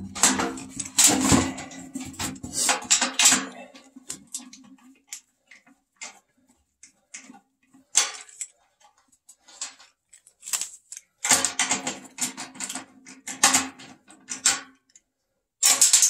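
Scattered clicks, knocks and metal clinks of hands and a tool working on a furnace's blower housing, pulling wire terminals off the run capacitor and unscrewing its holder. The clicks come in clusters, busiest at the start and again past the middle, with quiet gaps between.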